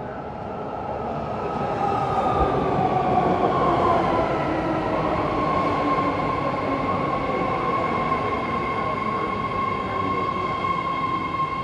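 A ten-car BART Fleet of the Future train pulling into the station: its running noise swells over the first couple of seconds, and a whine falls in pitch as it slows, then holds as a steady tone.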